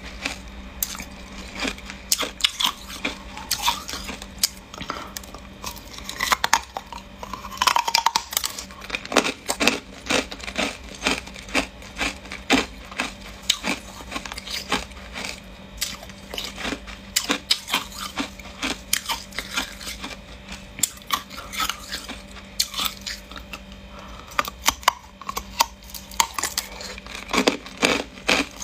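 Hard clear ice being bitten and chewed: a dense run of sharp, irregular crunching cracks as pieces are broken off a large block and crushed between the teeth. A faint steady hum lies underneath.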